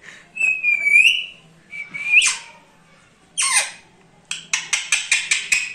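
Indian ringneck parakeet whistling: two clear whistles, the second flicking sharply upward. These are followed by a shrill call that slides steeply down and a quick run of about seven harsh chirps near the end.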